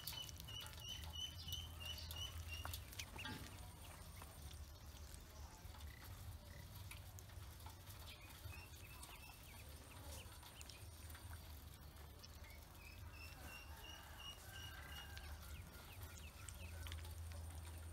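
Ducklings peeping: runs of short, high, evenly repeated peeps, a few a second, in the first few seconds and again about two-thirds of the way through, over a low steady hum.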